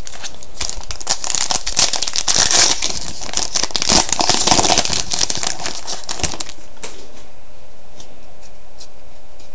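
A 2011-12 Upper Deck SPx hockey card pack wrapper being torn open and crinkled by hand. The crinkling runs for about six and a half seconds, then drops to a few faint ticks.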